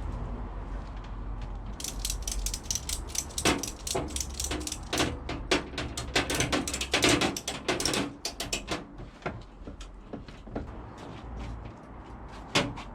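Ratchet-and-pawl clicking: rapid, irregular sharp clicks, dense for several seconds, then thinning out to scattered clicks.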